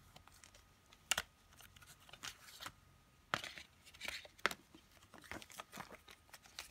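Folded paper CD booklet slid out of a plastic jewel case and unfolded by hand, rustling and crinkling, with a few sharp clicks.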